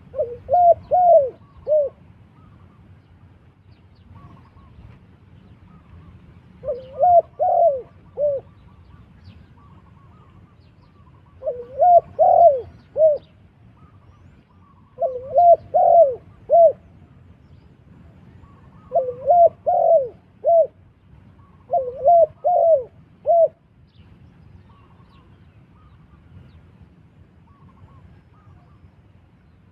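Spotted dove cooing: six phrases of four or five coos each, every coo rising and then falling, repeated every few seconds, with a longer pause near the end.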